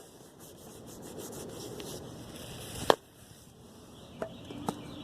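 Rubbing and scraping of hands and a ratchet being worked under a car. One sharp click comes about three seconds in, and two lighter ticks come near the end.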